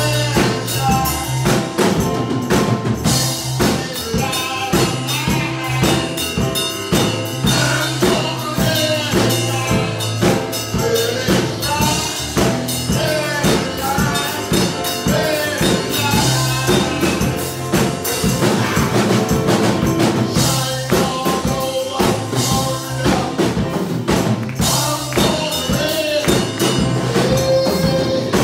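Live gospel praise music: a drum kit keeping a steady, driving beat with a keyboard playing over it.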